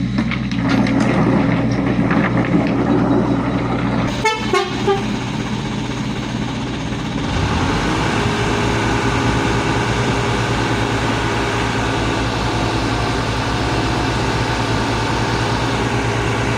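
Isuzu dump truck's diesel engine running, with a short rattle about four seconds in. From about seven seconds in a steady, multi-tone truck horn sounds over the engine.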